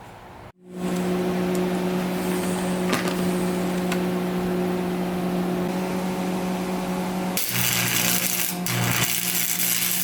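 Electric arc welder welding steel coilover parts: a steady crackling arc over an electrical hum, starting about half a second in and growing hissier near the end.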